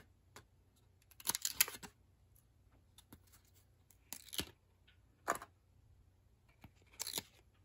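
Baseball trading cards being slid one at a time off a hand-held stack: about four short, soft swishes of card rubbing against card, with a few faint ticks of handling in between.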